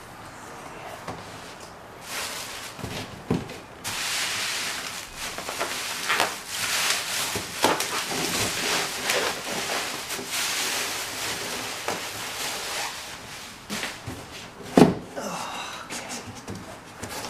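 Large cardboard shipping box being handled and opened: a long stretch of cardboard scraping and rustling, with bubble wrap crinkling, and one sharp knock a little before the end.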